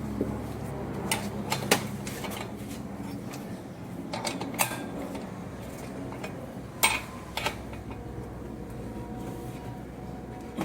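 Scattered metallic clicks and knocks from tools and parts being handled while a washing machine is reassembled and tightened, over a steady low hum.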